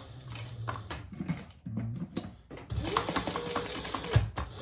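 A few soft clicks as a fabric strap is set under the presser foot, then a sewing machine runs up to speed, stitches for about a second and a half with a steady motor whine and rapid needle ticking, and slows to a stop near the end.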